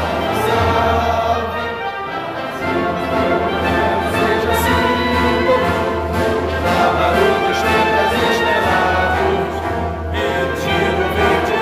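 Orchestral music with a choir singing in sustained, overlapping notes.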